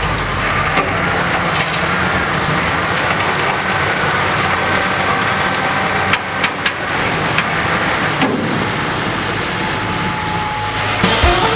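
Heavy vehicle engine running steadily, with a few sharp knocks about six to seven seconds in.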